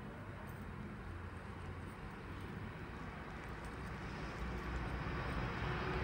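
Freightliner Class 66 diesel locomotive with its two-stroke V12 engine approaching on the through line, its rumble growing steadily louder as it nears.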